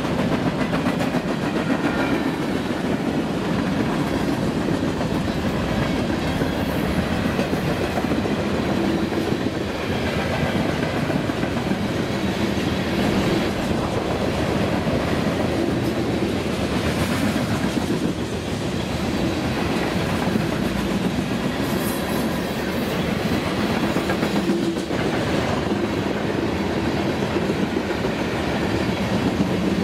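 A long freight train of covered hopper cars rolling past at speed: a steady rumble and clatter of steel wheels on the rails.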